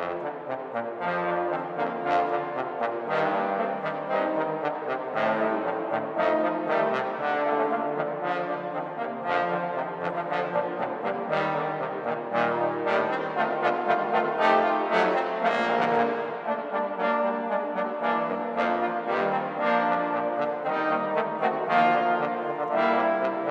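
Trombone quartet playing a piece together: four trombones in sustained, overlapping notes with frequent note changes, ringing in a church.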